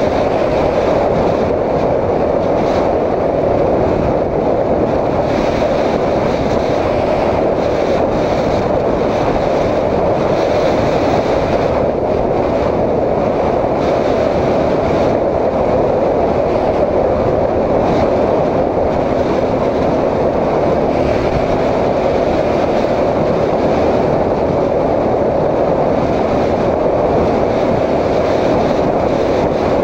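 Honda CB750 four-cylinder cafe racer being ridden at speed, heard from a helmet-mounted camera: a steady engine drone mixed with wind rush.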